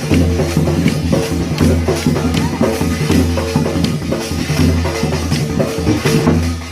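Loud music with a drum-kit beat over a deep, held bass line.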